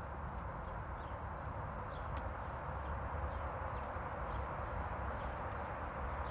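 Steady hum of distant road traffic, with small birds chirping now and then.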